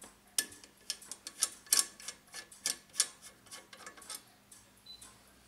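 Light, irregular metallic clicks and taps as a small fitting is unscrewed by hand from the brass base plate of a clock frame and loose clock parts are handled, about a dozen clicks at uneven spacing.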